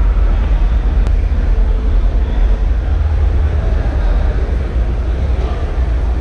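Steady, loud din of a crowd in a large arena hall, with a heavy low rumble underneath.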